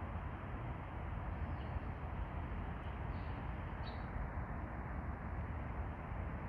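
Steady outdoor background hiss, with a few faint, short high chirps between about one and four seconds in.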